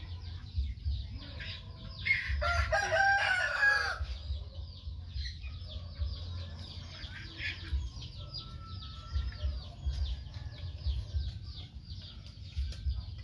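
A rooster crows once, about two seconds in, lasting a couple of seconds, over steady high chirping in the background.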